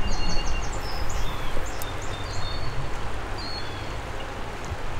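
Shallow creek water running over a rocky bed in a steady rush, with a small bird chirping in quick runs of short high notes, most densely in the first two seconds.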